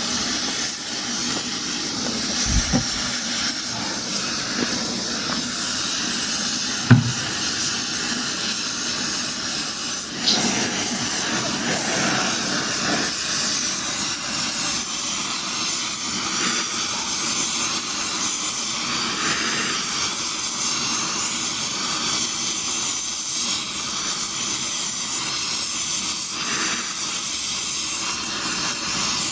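Blow torch flame hissing steadily as it heats a piece of steel, with a sharp knock about seven seconds in.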